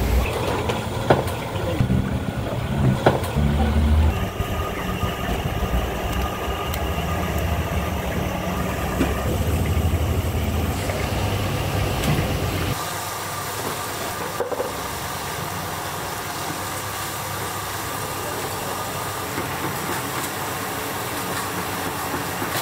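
A low rumble with a few knocks for about the first thirteen seconds, then a steady hiss of hot oil sizzling as chicken pieces deep-fry in a large wok.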